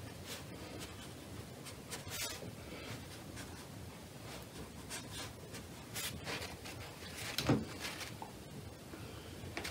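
Faint, soft scratchy strokes of a watercolour brush on paper, with a louder rustle about seven and a half seconds in as a paper tissue is handled at the palette.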